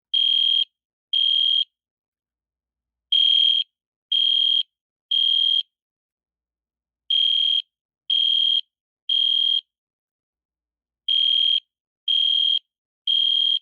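EST Edwards Genesis horn strobe sounding a loud, high-pitched electronic horn in groups of three half-second beeps about a second apart, with a pause of about a second and a half between groups. This is the temporal-three pattern, the standard fire evacuation signal.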